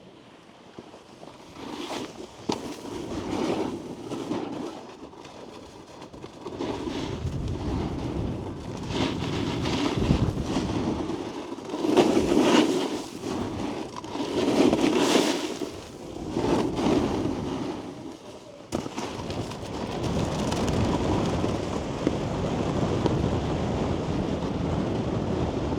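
Snowboard sliding and scraping over snow in a series of swelling turns, with wind rushing over the microphone.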